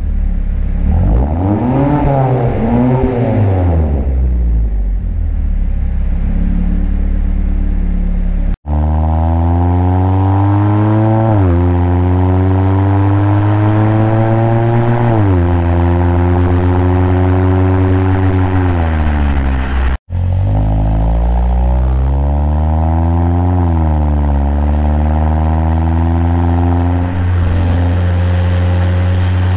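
2021 Mazda 3 Turbo's 2.5-litre turbocharged four-cylinder, heard through a CorkSport cat-back exhaust with a Vibrant resonator, driving under load. The engine note climbs in pitch as it pulls, drops sharply at an upshift about a third of the way in, eases down when the revs fall back, and holds a steady drone in between, with two momentary cuts in the sound.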